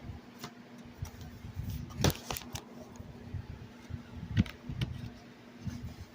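Scattered sharp plastic clicks and taps from a CD jewel case being handled, a quick cluster about two seconds in and another strong click past four seconds, over a faint steady hum.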